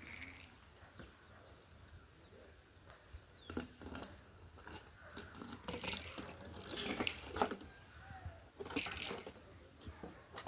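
Hands working through hair to pick out lice and nits: scattered small clicks and short rustles, busiest in the second half.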